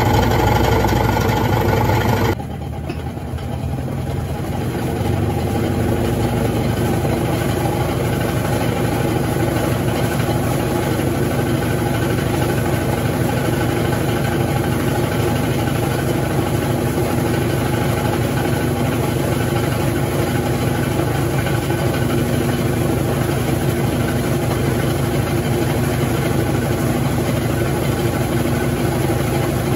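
Consul 12 kg CWS12 top-loading washing machine running with a steady mechanical hum; the sound changes abruptly about two seconds in, then builds over a few seconds and holds steady.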